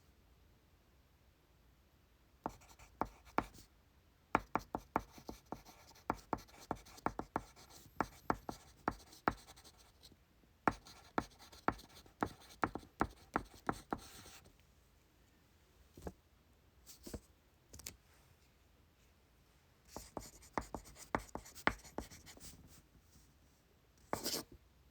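Pencil writing on paper: quick scratching strokes with sharp taps, in bursts with short pauses, then a brief scratchy rustle near the end.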